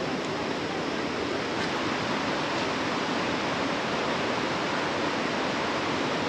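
Steady rush of falling water from a waterfall, an even continuous noise with no breaks.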